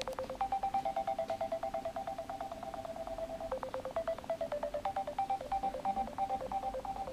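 Nokia 7230 mobile phone's speaker playing its power tone, a fast melody of short electronic beeps at about seven or eight notes a second, which changes its pattern partway through. A sharp click comes just as it begins.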